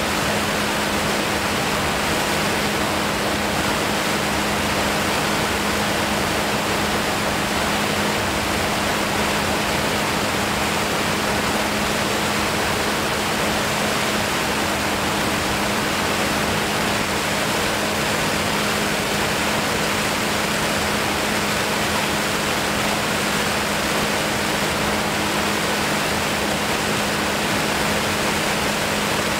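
Steady rush of airflow over the camera during flight, an even noise that doesn't change, with a constant low hum underneath.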